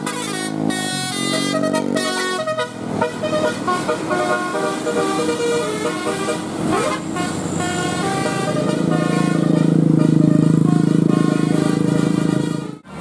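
Bus 'telolet' musical air horn playing a tune as a run of stepped notes, then holding one long chord, the loudest part, which cuts off suddenly just before the end.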